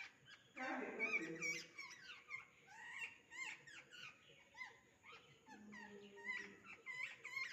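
Small birds chirping and twittering, many quick chirps overlapping without a break.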